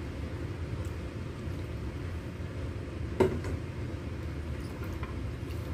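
Steady low background rumble with one sharp clink of kitchenware about three seconds in, while soup is stirred in a stainless steel pot.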